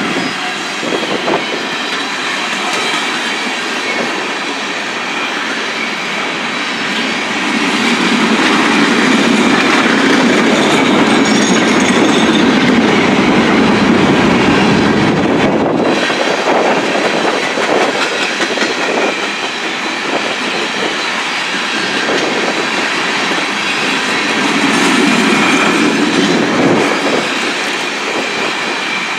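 Long coal train of gondola cars rolling past, its wheels rumbling and clacking steadily on the rails. The sound is loudest through the middle.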